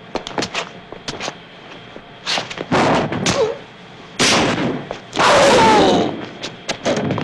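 Fight-scene foley performed live: a string of sharp punches, thuds and body blows, with two longer, loud scuffles about two and a half and four seconds in.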